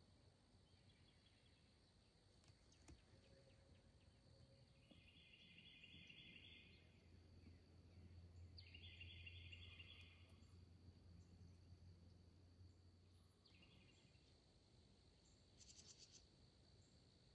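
Near silence of woods at dawn: a thin steady high hum, with faint trills lasting about two seconds that come several times, and a brief high chirping near the end.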